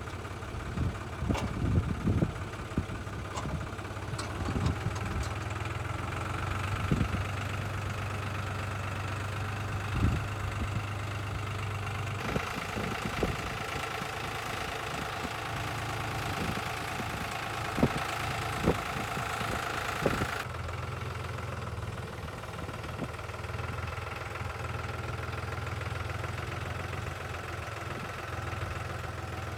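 Tractor engine running steadily at idle, with scattered knocks and clunks over it.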